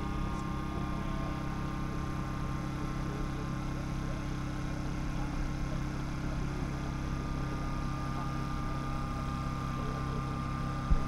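A steady mechanical hum that holds one pitch throughout.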